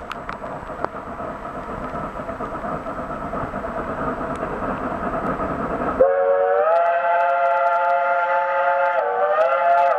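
A geared steam locomotive working toward the listener, a noisy rumble that grows steadily louder. About six seconds in, its chime whistle opens with a sliding rise into a long multi-note blast, which dips briefly and comes back up near the end.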